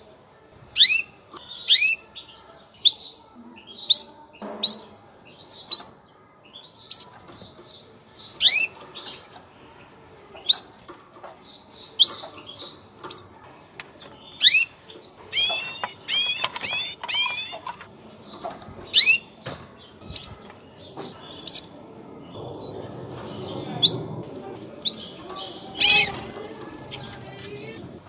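Female canary giving its mating call: short chirps, each dropping quickly in pitch, repeated about once a second and sometimes in quick runs. A single sharp knock sounds near the end.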